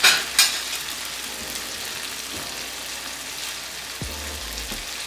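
Potatoes in a spiced tomato sauce sizzling steadily in a karahi, with two sharp clicks in the first half-second and a few faint low knocks near the end.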